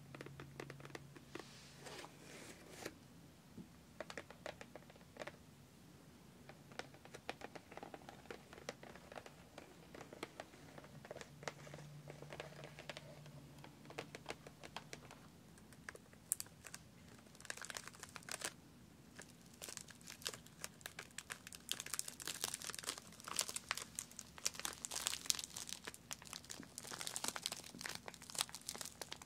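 Fingernails tapping and scratching on a printed cardboard sand-art kit box, a scatter of light clicks. From about halfway on it gives way to denser crinkling of plastic packaging.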